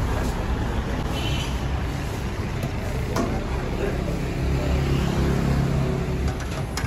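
Steady low rumble of a busy street-food kitchen, with a few sharp clicks of a metal ladle against a large steel cooking pot.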